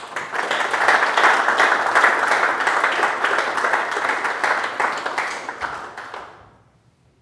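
Audience applauding, a steady clatter of many hands that dies away about six seconds in.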